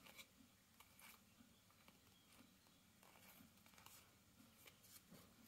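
Near silence with faint, soft ticks and rustles of trading cards being slid and flipped through by hand, a few scattered strokes about a second apart.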